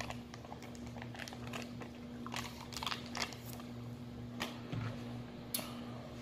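Scattered light clicks and taps from handling a plastic yogurt cup and spoon, over a faint steady hum.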